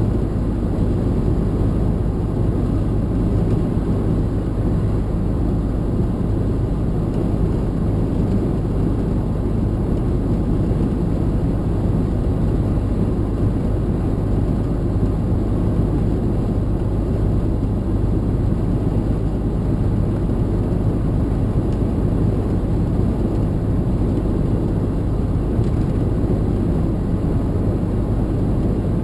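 Steady engine and road rumble inside a lorry cab driving at a constant speed, with no changes in pitch or gear.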